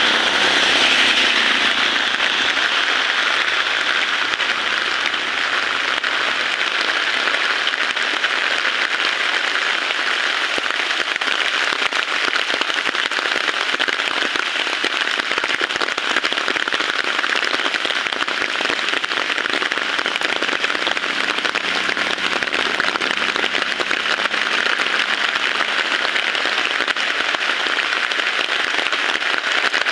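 Heavy rain falling steadily: an even, dense hiss of drops.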